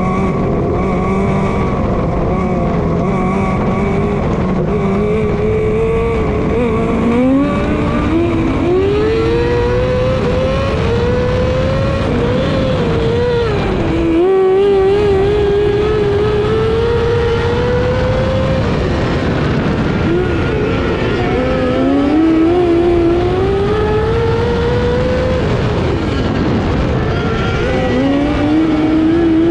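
Micro sprint car's engine at high revs, heard from on board. Its pitch climbs along each straight and drops sharply as the car lifts for the turns, several times over.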